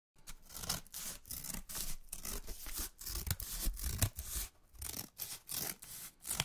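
Irregular scratchy rubbing and rustling noise, made of many short uneven strokes, that starts suddenly out of silence just after the beginning.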